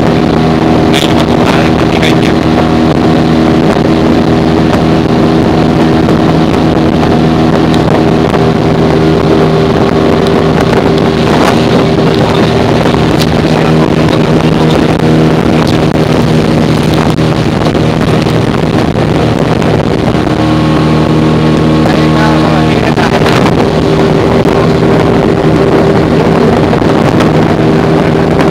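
Motor of a flat-bottomed aluminium boat running steadily under way, with wind buffeting the microphone. The engine speed changes briefly about two-thirds of the way through, then settles again.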